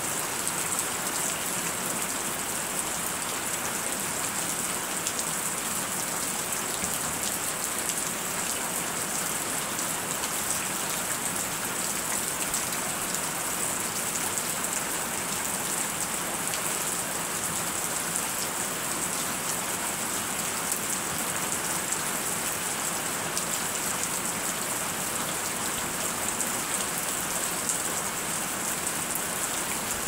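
Steady rainfall: an even hiss of rain with many small drop ticks, unchanging throughout.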